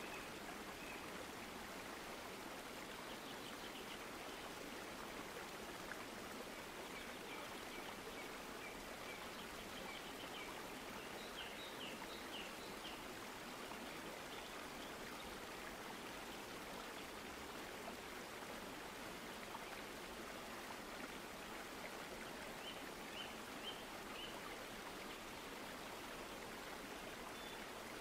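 Steady, even hiss of background noise, like running water, with a few faint short high chirps now and then.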